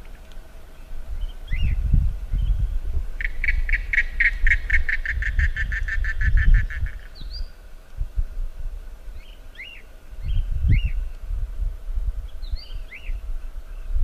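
Wild cockatiels calling: short rising-and-falling chirps scattered throughout, and a rapid pulsed trill of about five notes a second lasting some four seconds in the first half. A gusty low rumble runs underneath.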